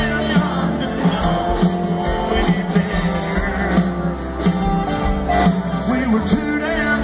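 Live country band playing a song with singing, a steady drum beat and guitars, as heard from the crowd.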